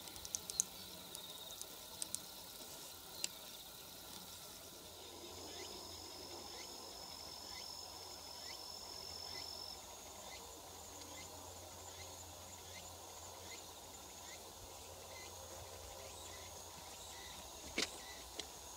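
Faint open-field ambience of insects: a steady high trilling, with a run of short chirps repeating about every half-second to second through most of it. A few sharp clicks come near the start and twice near the end.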